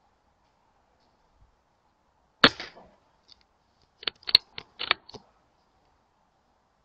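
BSA Ultra SE .177 sub-12 PCP air rifle firing a single shot, a sharp crack with a short tail. About a second and a half later comes a quick run of about six sharp clicks.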